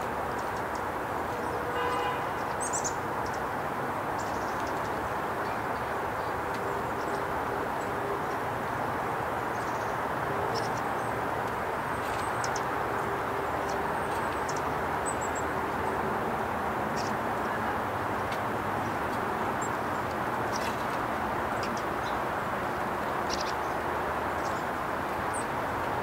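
A steady background rumble runs throughout. Small birds at a seed feeder give short, high chips now and then over it.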